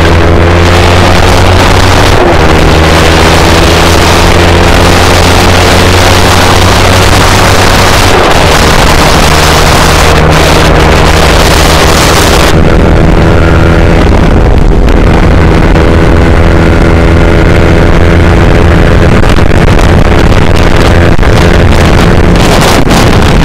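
Motorcycle engine running steadily under way, with wind rushing over the microphone. About halfway through the wind hiss drops off and the engine tone carries on.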